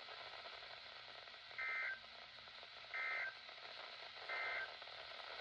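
Emergency Alert System end-of-message data bursts: three short, identical, buzzy two-tone squawks about 1.3 seconds apart, over faint steady radio hiss. They mark the end of the severe thunderstorm warning broadcast.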